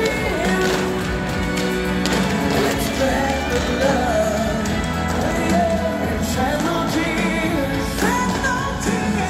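Pop-style music playing, with a wavering melody line over sustained bass and accompaniment.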